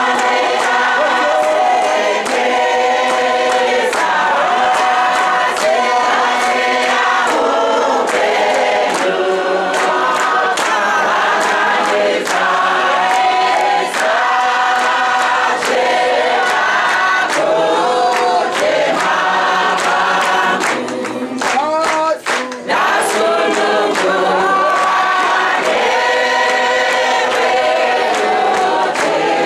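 A large group of women singing a hymn together, with hand clapping. The singing drops off briefly about three-quarters of the way through, then picks up again.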